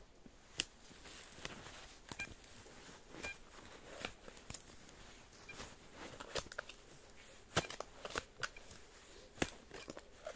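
Irregular sharp clicks and scraping from digging through soil and debris, with a few short high beeps from an XP Deus metal detector.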